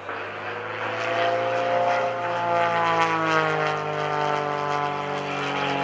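Pitts S-1S aerobatic biplane's Lycoming engine and propeller in flight, the engine note rising slightly and then falling steadily in pitch through the manoeuvre.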